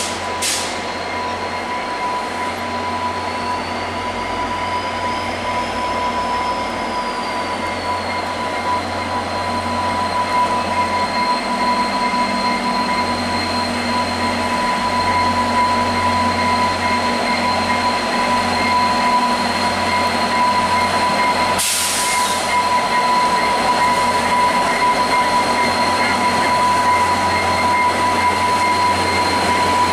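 Two F40PH-2 diesel locomotives hauling a long passenger train slowly out of a station, their engines running and growing louder as they approach, with a steady high whine throughout. A brief hiss comes about two-thirds of the way in.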